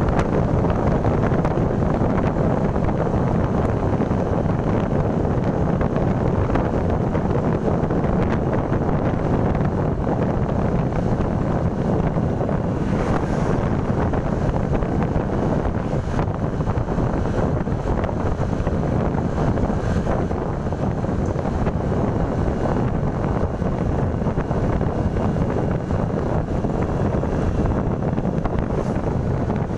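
Steady wind buffeting the microphone over the engine and road noise of a moving motorcycle.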